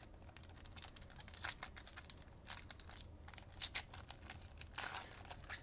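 Foil wrapper of a Panini Chronicles trading card pack crinkling and tearing as it is ripped open by hand, in an irregular string of sharp crackles, louder in a few clusters toward the end.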